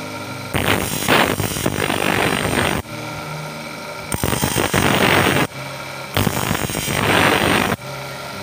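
Bench grinder's small disc grinding a decorative pattern into a monel metal ring held by hand: three grinding passes of one to two seconds each, with the motor running more quietly between them.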